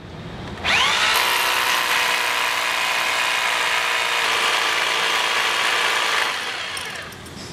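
Corded rotary hammer drilling an anchor hole into a concrete slab with a masonry bit. The motor spins up with a rising whine a little under a second in, runs steadily while drilling, and winds down near the end.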